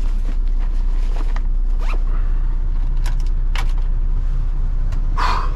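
MAN truck's diesel engine idling with a steady low rumble, under short rustles and scrapes of clothes and objects being handled in the cab; the loudest scrape comes about five seconds in.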